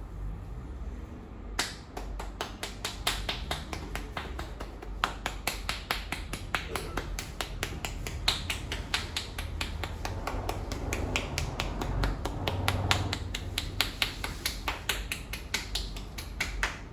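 Barber's hands striking the head in a percussive head massage: a fast, continuous run of sharp claps and slaps, several a second. It starts about a second and a half in and stops near the end.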